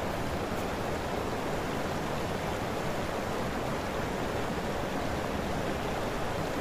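Steady rushing outdoor noise with no distinct events, the kind made by wind on the microphone and flowing river water.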